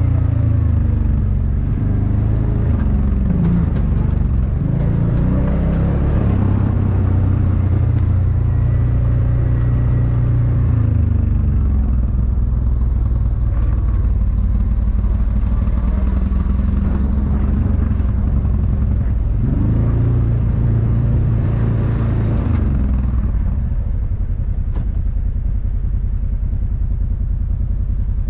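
Off-road vehicle engine running while riding over a dirt trail, its pitch rising and falling with the throttle. It turns quieter and steadier near the end.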